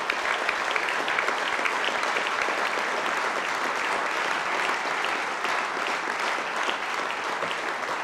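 A large audience applauding steadily, a dense sound of many hands clapping.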